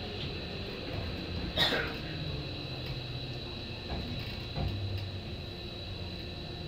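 Hankyu 7000 series electric train, heard from the cab at low speed or at a standstill: a steady low electrical hum with a thin high whine, a sharp clatter about one and a half seconds in, and two lighter knocks near the middle.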